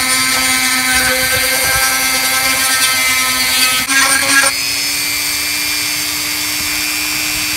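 Handheld rotary tool whining at high speed while its small bit grinds out the old knot from inside a plastic shaving-brush handle. About four and a half seconds in the grinding stops and the tool spins freely, giving a steady whine a little higher in pitch.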